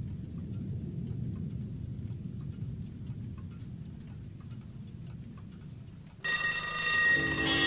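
A low rumble with faint scattered ticks. About six seconds in, a loud ringing of many bell-like tones starts suddenly, and a lower tone joins it near the end.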